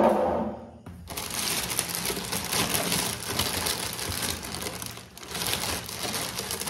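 A sharp knock, then about four seconds of crinkling and rustling of packaging being handled and pulled about while unboxing an air purifier.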